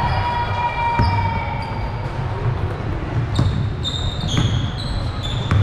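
Basketball game play on a hardwood court: a basketball bouncing a few times at uneven intervals, and from about halfway in, rubber-soled sneakers squeaking sharply on the floor.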